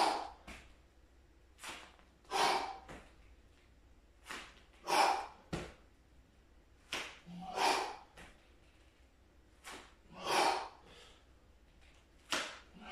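A man breathing hard under exercise strain. A short breath in is followed by a louder, forceful breath out, repeating about every two and a half seconds, five times. There is a small knock about halfway through.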